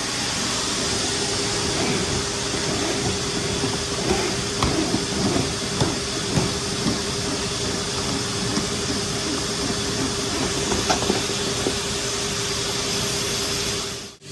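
Duct-cleaning equipment running: a steady rush of air over a constant hum. Irregular rattling and knocks come through in the middle, about four to seven seconds in, and again briefly near eleven seconds. It cuts off suddenly at the very end.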